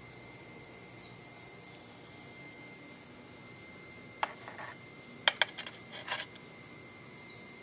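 Glazed ceramic bonsai pot clinking and knocking as it is set down on a hard ledge: a few sharp knocks about four seconds in, then a tighter cluster of clinks about a second later.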